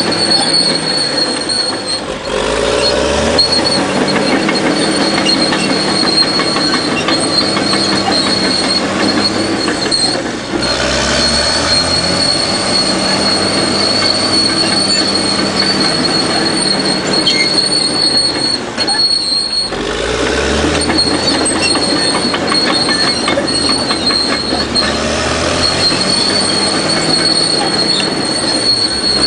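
Caterpillar D6R bulldozer running and travelling: the diesel engine working under a steady high-pitched squeal and clatter of steel tracks. The engine note changes sharply about every eight to nine seconds.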